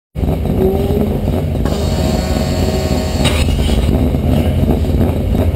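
Car engine running loudly and steadily.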